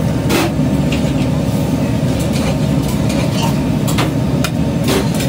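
Steady low rumble of a kitchen with karahi woks on high-flame gas burners, with a long metal ladle clinking and scraping against a steel wok about nine times.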